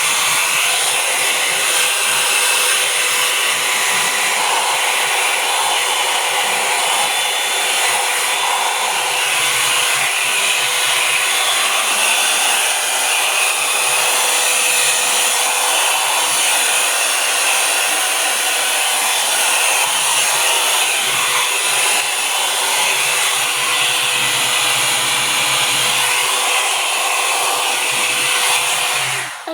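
Revlon blow-dryer brush running steadily while drying and brushing hair: a loud, even rush of air with a faint motor hum. It switches off just before the end.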